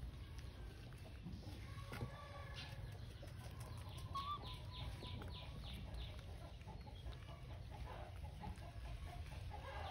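Chickens clucking faintly, with a quick run of high chirping calls about four seconds in, over a low steady rumble.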